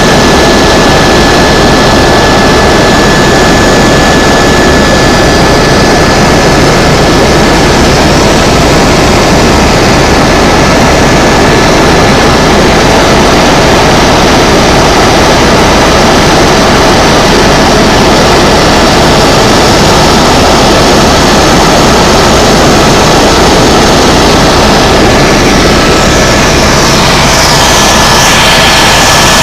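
Tour helicopter in flight: steady engine and rotor noise with a thin, steady high whine through it, loud and unbroken.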